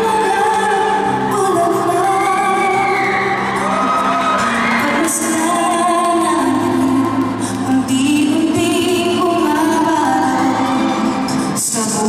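A woman singing a slow ballad live into a microphone, holding long notes, with keyboard and band accompaniment.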